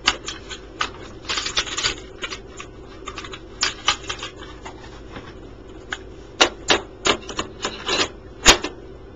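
Irregular plastic clicks and clacks from a Magnavox D8443 boombox's cassette deck being handled by hand, its keys and parts worked. There is a quick cluster of clicks early on and a run of louder ones in the second half.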